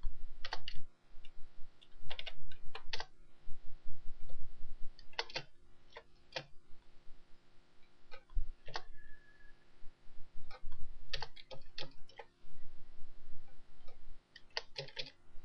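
Computer keyboard being typed on in short irregular bursts of key clicks, with pauses between them.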